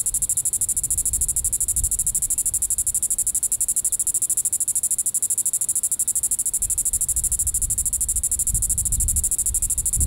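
Diceroprocta vitripennis (green-winged cicada) calling at close range: a steady, high-pitched buzz made of rapid, evenly spaced pulses.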